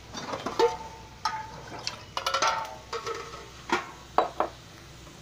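Kitchen utensils clinking and knocking against pans and vessels: a string of sharp taps, several with a short metallic ring.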